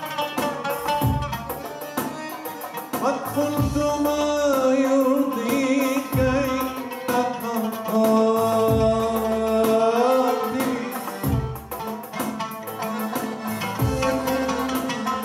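Live Arabic band playing a slow piece: long held melody notes that waver and glide, over a deep drum stroke about every two and a half seconds.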